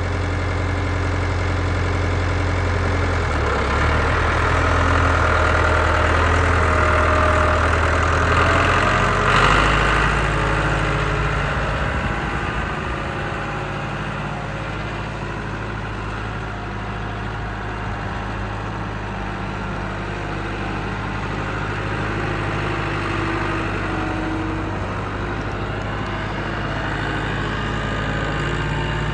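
Farm loader tractor's engine running as the tractor drives off. Its low engine note shifts about three and a half seconds in and again near ten seconds, is loudest before the second shift, then grows quieter as the tractor moves away and a little louder again near the end.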